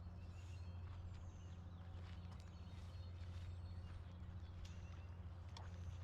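Outdoor ambience: a steady low hum with short, faint high chirps and a few light clicks scattered through it.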